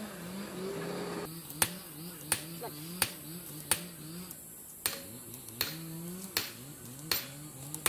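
Hand hammer striking a red-hot piece of car leaf spring on a stake anvil: about nine sharp, evenly spaced blows, roughly one every 0.7 seconds, starting a second or so in.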